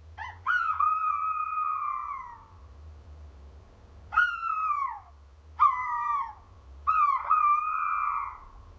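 Owl calling: four calls, each starting with a quick upward flick and then falling away. The first call lasts about two seconds, two short ones follow after a gap, and a longer call comes near the end.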